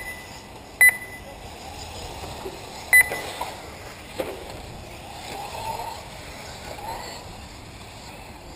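Three short, high electronic beeps from the race timing system, the last coming about two seconds after the second: the start signal of an RC car race. A low, uneven background follows.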